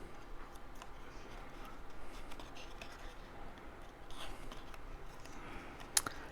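Cardstock rustling and rubbing as glued paper tabs are pressed together by hand, with faint scattered clicks and one sharper tap near the end.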